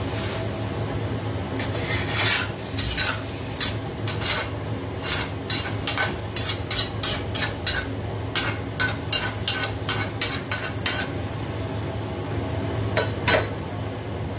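A metal ladle scrapes and knocks against a wok as shredded vegetables are stir-fried, in quick repeated strokes, with the food sizzling underneath. The strokes run through the middle stretch and come once more near the end, over a steady low hum.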